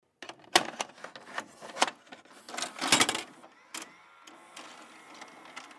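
Old computer terminal clattering: irregular mechanical clicks and clacks, busiest about three seconds in. From about three and a half seconds in it gives way to a faint steady electronic hum with a thin high tone.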